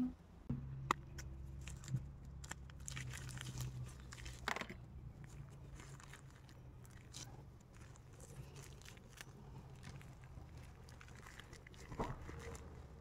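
Plastic film crinkling and rustling as gloved hands grip and turn the plastic-wrapped rooting medium of a rubber plant air layer (marcot). A few sharp snips of pruning shears come in the first two seconds, and a low steady hum runs underneath.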